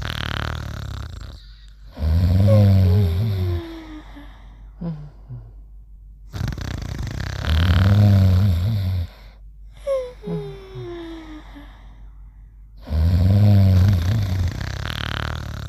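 Cartoon snoring: a rasping snore in, then a loud low snore out with a falling whistle, the cycle repeating three times about every five and a half seconds.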